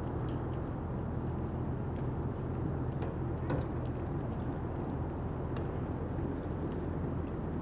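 Outdoor harbour ambience: a steady low rumble and hum, with a few faint scattered ticks and a slightly sharper click about three and a half seconds in.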